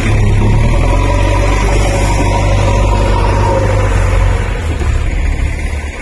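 JCB 3DX backhoe loader's diesel engine running steadily under load while working the loader bucket on sand. The engine note changes and the level dips slightly about four and a half seconds in.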